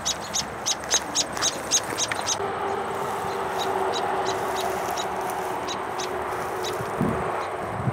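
American robin chirping in quick repeated short high calls, about three a second. The calls turn fainter a little over two seconds in and go on under a steady background hiss.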